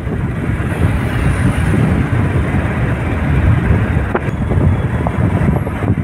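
Road noise of a moving vehicle with wind buffeting the microphone: a steady low rumble.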